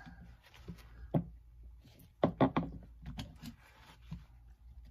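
Flat screwdriver prying a spring-loaded fuel injector retainer clip off a metal fuel rail under a rag: scattered small clicks and knocks, with two quick runs of about three clicks in the middle.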